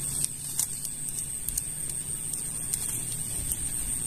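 Scattered sharp clicks and grass rustling as hands work in the grass handling a freshly caught snakehead, over a steady high-pitched whine.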